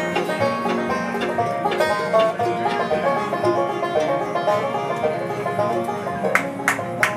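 Bluegrass band playing an instrumental break: the banjo picks a fast, unbroken run of notes over acoustic guitar and upright bass, with a few sharp strummed strokes near the end.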